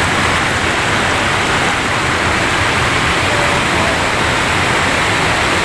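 Water pouring over a concrete weir spillway, a steady loud rush.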